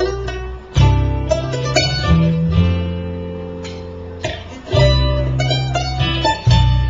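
Live acoustic bluegrass instrumental passage with no singing: acoustic guitar picking over plucked upright bass, a chord left ringing about halfway through.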